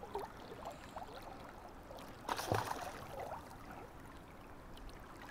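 River water gurgling softly, with one brief splash about two and a half seconds in as a hooked brown trout thrashes at the surface while being drawn to the net.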